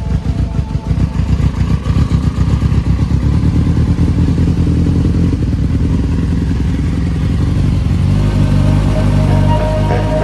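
Fuel-injected sport motorcycle engine idling just after its first start following a frame swap, its level pulsing unevenly at first and then settling. Music comes in over it about eight seconds in.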